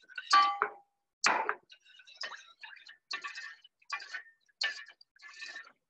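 Light taps and clinks of a utensil against cookware, about one or two a second and unevenly spaced. A few of them ring briefly.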